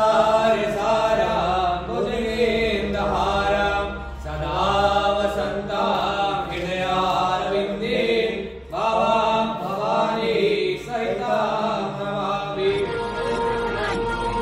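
Hindu mantras chanted in a sing-song recitation for a yajna fire ritual, the voice running on in short phrases with brief breaths between them.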